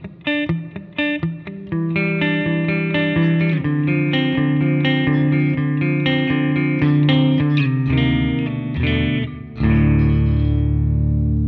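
Jackson JS32 electric guitar played on a clean tone with the pickup switch in the middle position, both Jackson High Output humbuckers on. Short picked single notes give way to ringing, overlapping arpeggiated notes, and a chord is struck near the end and left to ring.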